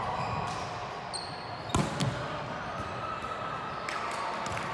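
A volleyball striking the hardwood gym floor twice in quick succession about two seconds in, each hit sharp and echoing in a large sports hall, over a steady background din of play and voices from the other courts.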